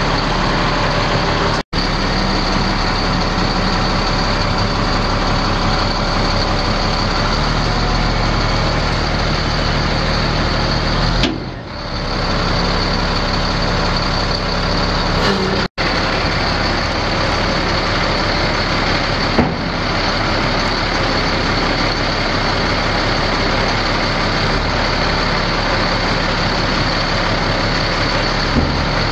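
Caterpillar 3126 six-cylinder turbo diesel of a GMC C8500 dump truck idling steadily, with two brief instant dropouts.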